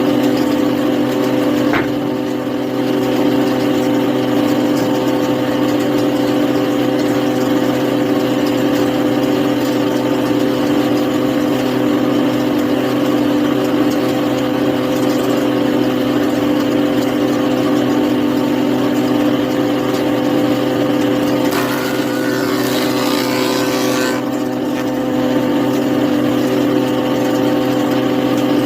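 A power saw's motor running steadily at constant speed, with a stretch of added hissing noise a little over twenty seconds in.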